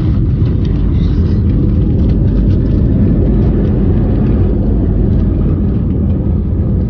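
Airliner cabin noise while the plane rolls along the ground: a loud, steady low rumble of the engines and the wheels on the pavement, heard through the cabin.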